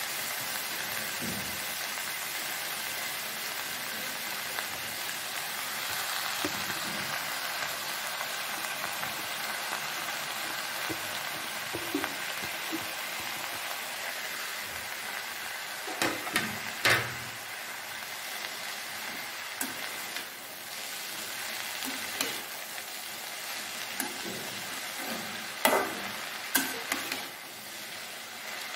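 Chopped water spinach sizzling in a metal wok, a steady frying hiss. A wooden spatula stirs the leaves and knocks against the pan a few times around the middle and again in a short cluster near the end.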